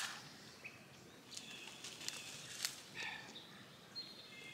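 The Seyvum CS-BM11 cordless mini chainsaw's electric motor winds down in the first half-second. After that there is quiet outdoor ambience with a few short bird chirps and several light clicks.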